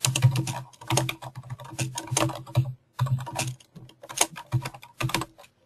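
Computer keyboard typing: runs of quick keystrokes broken by short pauses.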